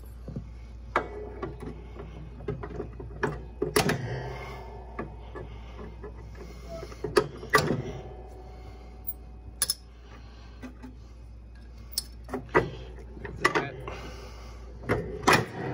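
A wrench clinking and knocking against the steel rear hanger brackets and pins of a riding mower's deck as a deck pin is worked loose. Irregular sharp metal clicks, some ringing briefly, with the loudest knocks about 4, 7.5 and 15.5 seconds in.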